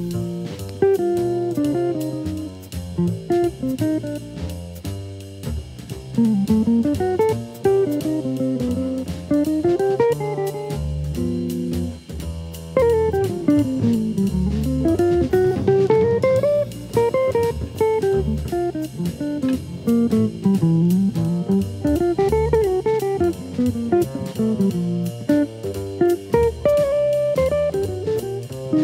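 Jazz guitar trio: a jazz guitar plays single-note lines that repeatedly climb and fall, over a bass line and drums keeping a steady beat.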